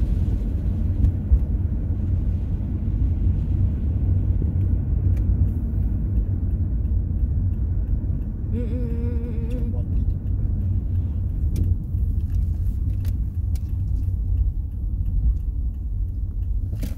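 Car driving, heard from inside the cabin: a steady low rumble of engine and road noise. A brief wavering tone rises over it about halfway through.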